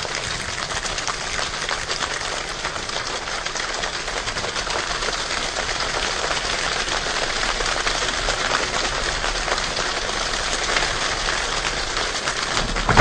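Steady rain: a dense, even patter of drops, slowly growing a little louder.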